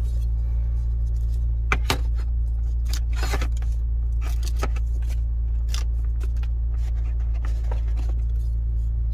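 Hands handling a clip-on rear-view mirror and its cardboard box, giving scattered taps, scrapes and a scratchy rustle of cardboard and tape backing. Under them runs a steady low hum in the car cabin.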